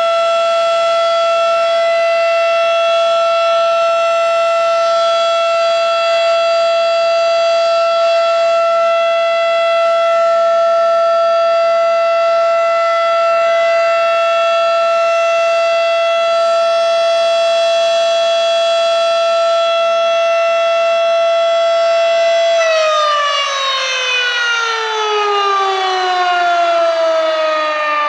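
Federal Signal Model 5 electromechanical warning siren sounding a loud steady tone. After about twenty-two seconds the power is cut and it winds down, its pitch falling steadily as the rotor slows.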